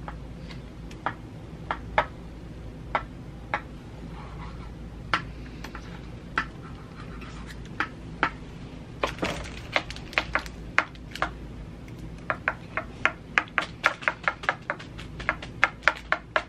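Eating sounds and candy wrapper handling: scattered sharp clicks and crackles that come quicker and denser in the last few seconds.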